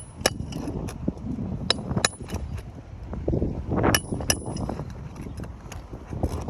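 Irregular sharp taps and clicks of a hammer and flat bar working overdriven roofing nails loose from asphalt shingles, over a steady low rumble of wind on the microphone.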